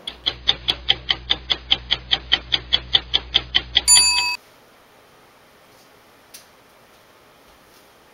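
Clock-ticking sound effect: fast, even ticks about five a second for nearly four seconds, ending in a single short ringing bell ding.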